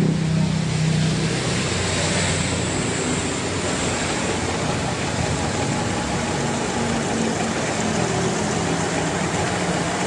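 Single-tub washing machine spinning a wet, detergent-washed carpet in its spin cycle: a steady whirring run with an even rushing noise as the soapy water is spun out.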